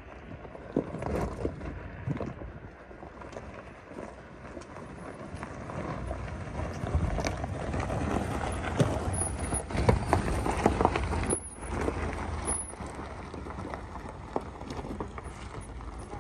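Toyota Land Cruiser Prado driving slowly over loose rocks and gravel, its tyres crunching and popping stones under a low engine note. It grows louder as the SUV draws level past the middle, then eases off.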